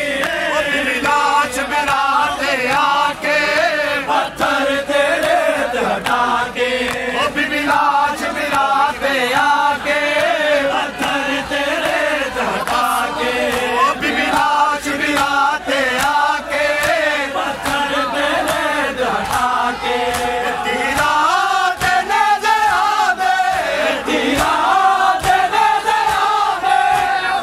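Group of men chanting a Punjabi Shia noha (a mourning lament) in unison, loud and continuous, with sharp slaps of matam (chest-beating) mixed in.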